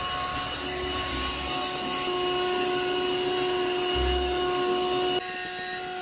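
Electric air pump running with a steady motor whine as it pumps air in. About five seconds in, its tone changes abruptly and the level drops a little.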